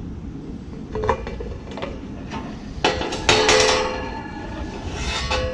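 Metal parts and tools knocking and clinking against sheet metal during an air-conditioner condenser fan motor replacement: several sharp clanks that ring briefly, the loudest about three seconds in.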